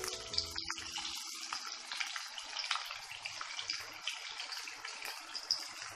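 Chopped onions frying in hot oil in a pan: a steady sizzle with small crackles throughout.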